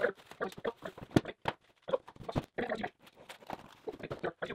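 Parts and packaging being handled while unpacking a cardboard box: irregular rustling and knocking, with one sharp knock about a second in.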